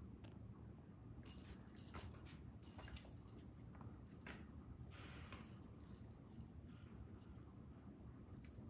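Cat wand toy jingling in short, irregular bursts as it is jerked about and batted by kittens.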